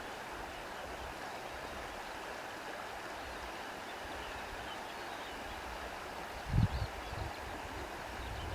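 Steady rushing of flowing stream water, with a brief low thump about six and a half seconds in.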